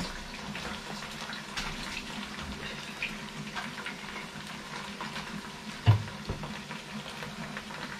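Kitchen tap running as something is rinsed under the water, with one sharp knock about six seconds in.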